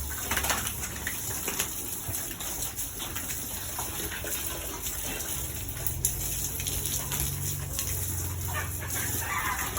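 Water splashing and running while piglets are bathed, with faint animal calls over it.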